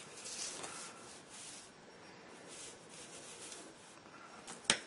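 Hands sliding and repositioning a solderless breadboard on the desk surface: soft rubbing swishes, then a sharp click near the end.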